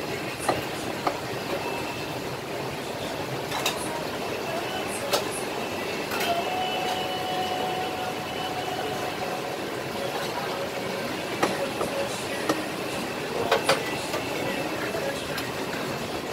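Steady background din of a busy food-stall kitchen and hawker centre, with scattered sharp knocks and clinks of utensils and plates.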